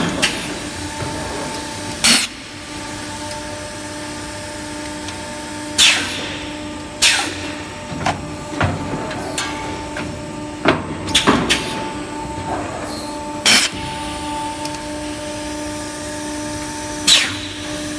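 Extrusion blow moulding machine running with a steady hum that carries two steady tones. Every few seconds sharp clacks and short hisses of air sound as the mould clamp opens and closes and the bottles are blown.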